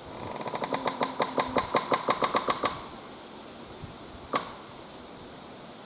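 A dead, rotted pine trunk leaning on a living beech, creaking as the wind sways the beech: a rapid stuttering creak of about six knocks a second, lasting about two and a half seconds. A single sharp knock follows about four seconds in. The sound comes from the pine rubbing against the beech, which has scraped bark off it.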